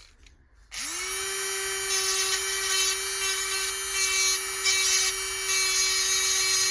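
Small high-speed rotary tool spinning up a little under a second in, then running at a steady high pitch with a bright hiss, working metal.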